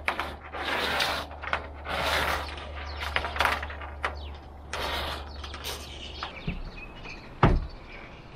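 Metal tape measure being worked along corrugated iron roofing: irregular rasping scrapes and rattles of the blade and clicks of its case. One heavier knock comes near the end.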